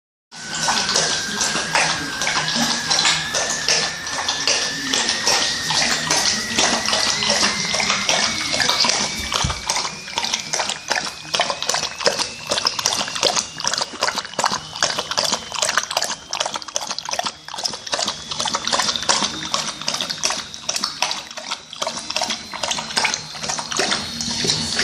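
Water running and splashing steadily, with a thin tone that climbs slowly in pitch, like a vessel filling.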